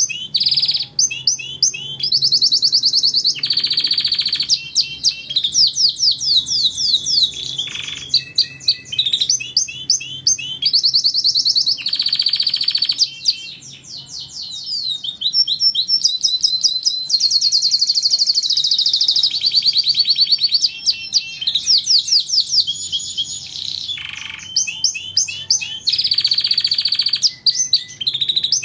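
Domestic canary singing a long, unbroken song of fast trills and rolling repeated notes, high-pitched, switching to a new trill every second or two.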